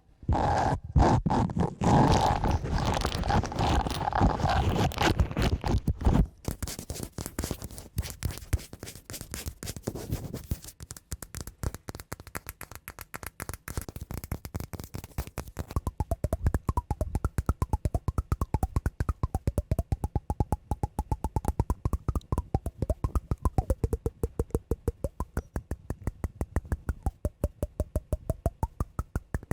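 Scraping and tapping on a cork pad and wooden block. It opens with dense, continuous scraping, breaks into rough scratching about six seconds in, and from about eleven seconds settles into a fast, even run of taps.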